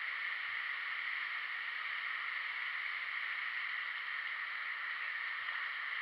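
Steady rushing of waterfall and fast-flowing river water, an even hiss that does not change.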